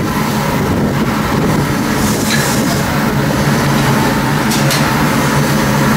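Stationary Corliss steam engine running, a steady mechanical drone with a couple of sharp clicks.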